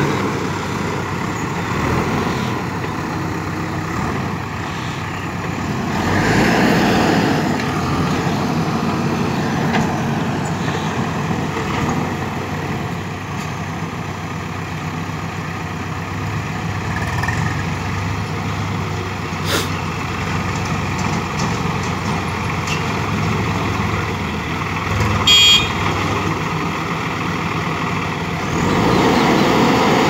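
Diesel engines of a JCB backhoe loader and a tractor running steadily as the tractor and its trailer drive up alongside the backhoe. A short horn beep sounds near the end.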